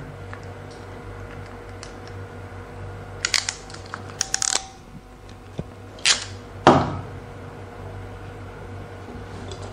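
Hand crimping tool crimping an RJ45 connector onto a network cable: two quick clusters of small clicks about three and four seconds in, then two louder single clicks around six and seven seconds.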